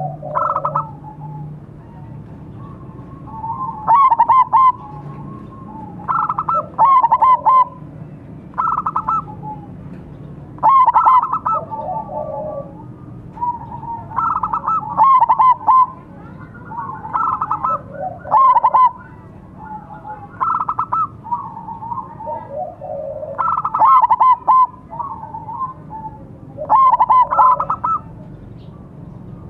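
Zebra doves (perkutut), a silver-morph bird and a local one, cooing back and forth: loud phrases of rolling, trilled coos that come every two to three seconds.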